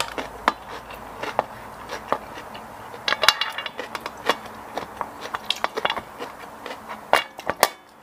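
Wooden spoon and fork clicking and scraping on a stainless steel serving tray, irregular taps with a quick cluster about three seconds in and two louder knocks near the end, along with chewing.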